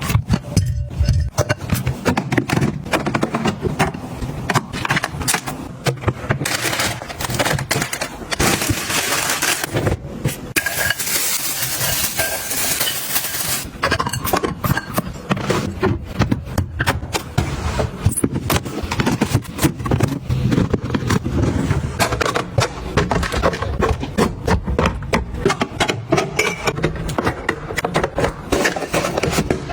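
Household items being handled and set down: a run of clicks, taps and scrapes, with two spells of hissing or rustling a few seconds long near the start of the second quarter.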